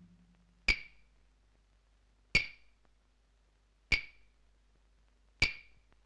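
Four sharp percussive knocks, evenly spaced about a second and a half apart, each with a brief bright ring that dies away quickly.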